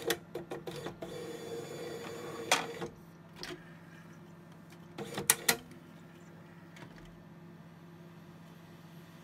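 Rimage 2000i duplicator's robotic disc-handling arm running: its motor whirs with a string of clicks and a sharp clack, and stops about three seconds in. About five seconds in comes a quick cluster of loud clacks as a blank CD drops into the drive tray and the tray closes, then a steady low hum.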